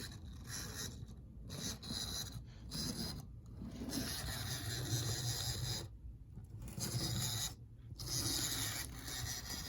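Small electric motor and gears of a Bachmann N-scale Mikado model locomotive running, a whirring hum with a hiss of mechanism noise that cuts out and restarts about five times as the locomotive stalls.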